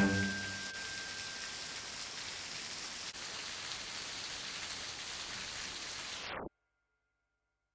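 Steady, even hiss, with a thin tone fading out over the first two seconds. The hiss cuts off suddenly about six and a half seconds in.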